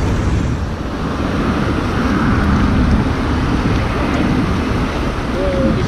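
Steady wind rumble on the microphone over the sound of road traffic.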